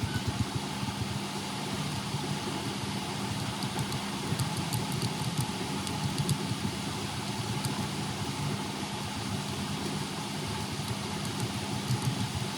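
SMD hot-air rework station blowing steadily: a continuous rush of air with a low hum, with faint light ticks throughout. It is heating the black glue around a phone's charging connector to soften it for removal.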